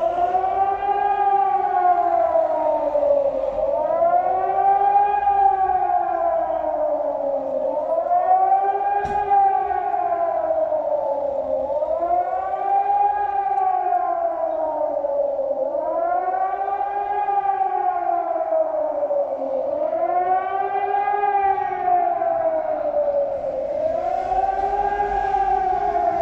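Electric civil-defence siren wailing, its pitch rising and falling about once every four seconds. This is the German warning tone, sounded here in a nationwide test.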